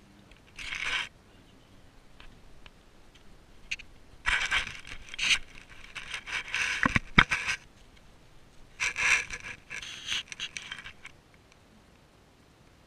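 Scraping and rubbing noise in three bursts, with a few sharp knocks in the middle one, from the camera being handled and moved across the artificial turf and glass of a terrarium.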